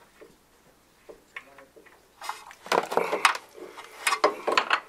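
Close handling noise from an oil filter being fitted by hand under the engine: a dense run of irregular clicks and scrapes starting about two seconds in.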